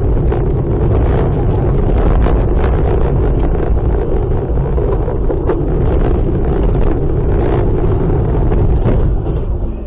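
Loud, dense rumbling vehicle noise with wind buffeting the microphone, broken by frequent short knocks and rattles; it drops off about half a second before the end.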